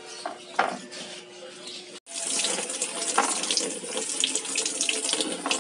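Two short handling sounds in the first second. Then water starts abruptly and runs steadily from a tap, splashing.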